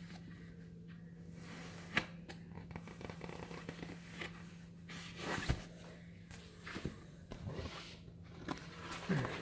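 Inflated vinyl beach balls being handled and rubbed by hand: scattered squeaks, rubs and crinkles of the plastic, with a sharp tap about two seconds in. A steady low hum runs underneath.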